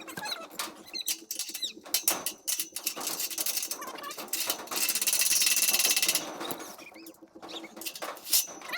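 Metal clinks and handling knocks while a gate is being bolted up. About five seconds in, a cordless power tool runs for just over a second. Birds chirp in the background.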